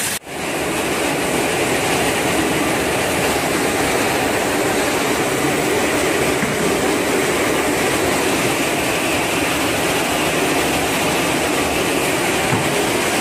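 TLP1083 industrial crusher running, with a steady, dense mechanical noise that briefly drops out just after the start.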